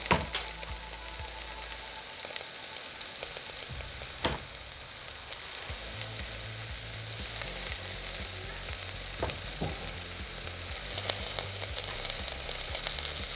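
Onion and potatoes sizzling steadily in olive oil in a rice cooker pot, with a few sharp knocks, three of them clear.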